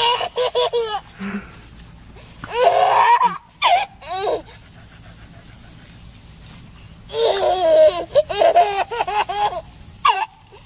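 A toddler laughing in high-pitched bursts of giggles: a short spell at the start, another about two and a half to four seconds in, and a longer run of laughter from about seven seconds in.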